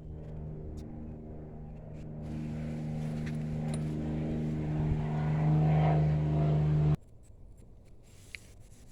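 A motor running with a steady hum, growing louder, then stopping abruptly about seven seconds in.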